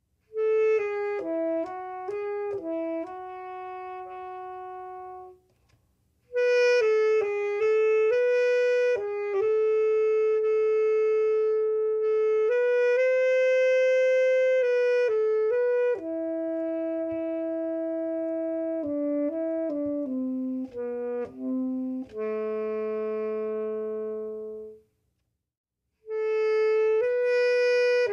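Unaccompanied tenor saxophone, played by a beginner, carrying a slow song melody in phrases of moving and long held notes, with short pauses for breath about six seconds in and near the end.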